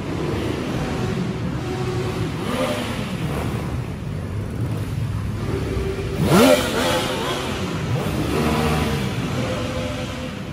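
Several vehicle engines running and revving as they move past, their pitches rising and falling. One sharp rev about six seconds in is the loudest moment.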